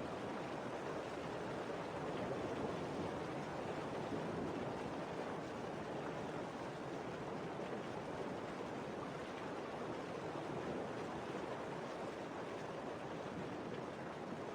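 Steady, even static hiss with no distinct events.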